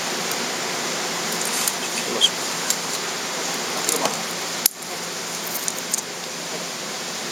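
Steady hiss of background noise with a few faint clicks and rustles from fishing line, beads and a plastic mesh bait basket being handled. About two-thirds of the way through the hiss drops out for an instant and comes back a little quieter.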